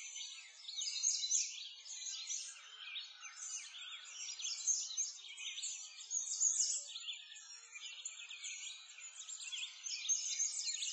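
A dense chorus of many small birds chirping, with short overlapping calls that never let up.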